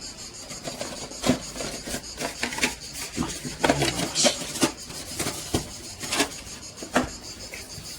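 Hands handling packaging and a small plastic docking station: rubbing and rustling, broken by scattered sharp clicks and knocks every second or so.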